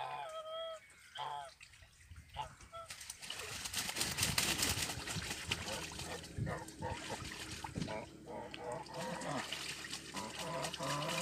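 Water splashing and sloshing as domestic geese bathe and paddle in a shallow pool, with a few short goose calls near the start and again later.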